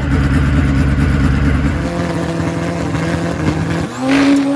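Drag motorcycle engine running loudly and steadily at the starting line, then revving up with a rising pitch about four seconds in as the bike launches off the line.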